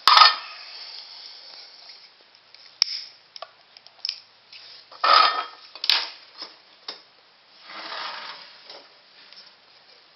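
Scattered light clicks and knocks from a small metal tin burner being handled on a table: the lid coming off, a lighter being struck and the tin set down. The loudest knock comes right at the start.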